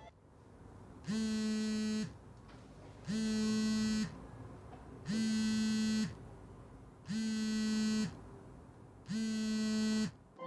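Smartphone vibrating on a table with an incoming call: five buzzes, each just under a second long, about two seconds apart.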